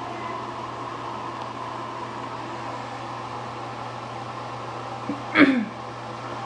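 Steady hum and hiss, fan-like, with a short sound falling in pitch about five seconds in.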